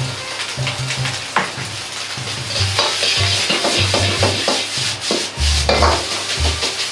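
Fried rice sizzling in a carbon-steel wok as a metal ladle stirs and scrapes it, with sharp clanks of the ladle against the wok. The sizzle grows louder about two and a half seconds in.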